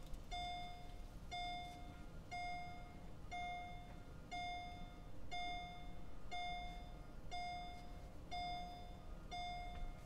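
Mercedes-Benz SL500 cabin warning chime repeating about once a second, ten even single-pitched bongs, each under half a second long: the car's key reminder warning.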